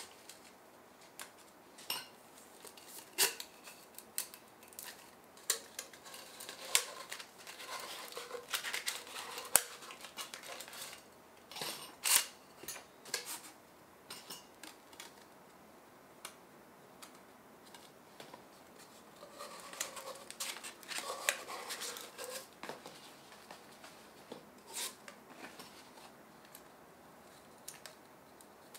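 Irregular light metallic clinks, taps and rustling as a folding titanium camping wood stove and its parts are handled and packed into their bag, coming in clusters with quieter gaps between.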